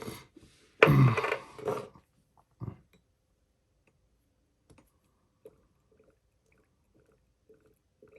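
A short burst of voice about a second in, then faint, scattered small clicks and taps from handling a fountain pen and ink bottle while the pen is filled with ink.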